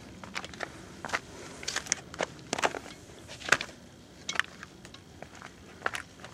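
Footsteps on a rocky, gravelly mountain path: uneven crunching steps, about two a second.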